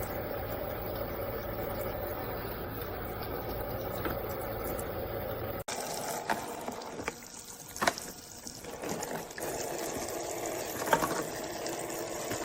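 Water running from a toy sink's battery-powered pump faucet into its plastic basin. About halfway through the sound breaks off abruptly, and a few sharp clicks and knocks of plastic follow over a quieter trickle, before the steady running water comes back near the end.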